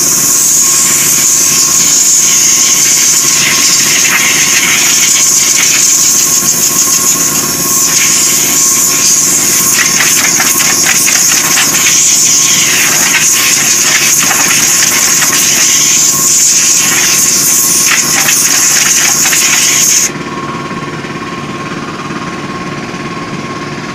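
Steady machine hum with a loud, high hiss of compressed air over it. The hiss cuts off suddenly about twenty seconds in, leaving the lower hum running.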